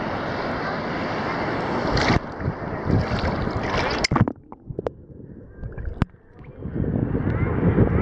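Sea water and wind rushing against a microphone held at the water's surface among small waves. About four seconds in the sound suddenly goes muffled, with a few sharp clicks, as a wave washes over the camera; after about two seconds the rushing comes back louder and deeper.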